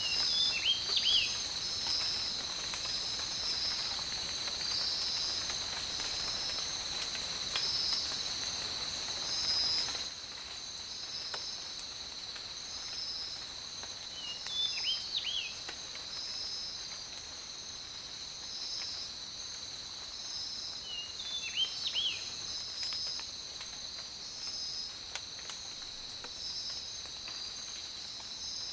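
Forest ambience: a steady, high-pitched insect chorus with a pulsing upper layer, over which a songbird gives a short phrase of a few quick notes three times, at the start, about halfway through and again a little later.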